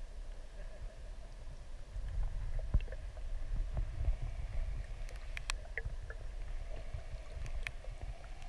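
Muffled low rumble of water moving around a submerged camera, with a few sharp clicks and ticks scattered through it.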